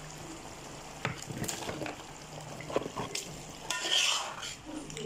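A plastic spatula stirring turkey pieces through a pot of frying tomato stew, with a few scrapes and knocks against the pot over a light sizzle.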